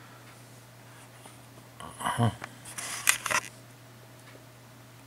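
Handling noise from a handheld camera: a short rustle about two seconds in, then a few sharp clicks a little after three seconds, over a steady low hum.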